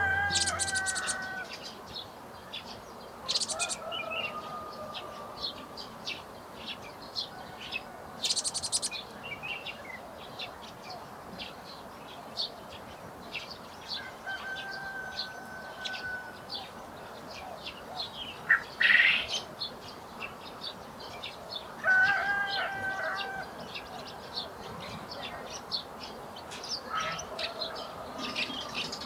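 Several songbirds chirping and calling in a garden: many short high chirps, with a few louder whistled calls and brief high trills.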